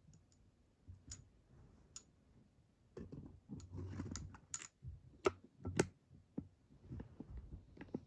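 Lightsaber hilt parts being handled and fitted together: scattered small clicks and knocks with some rustling as a chassis is seated in the hilt, the sharpest clicks about five and six seconds in.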